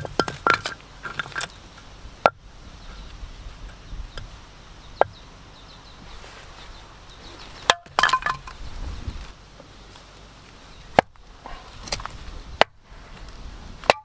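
Scattered sharp cracks, knocks and clinks of firewood being broken and set into a steel wood-burning fire grill, in a few short clusters with single knocks between them.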